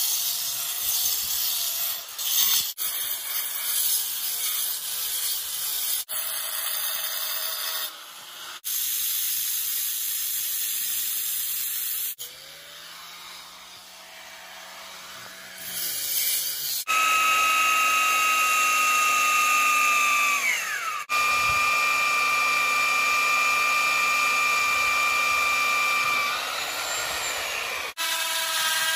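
Electric power tools working stone: an angle grinder grinding a stone block with a rough, hissing rasp, followed by a tool motor running at a steady whine that winds down and starts again. Near the end an electric drill spins up on a stone disc with a rising whine.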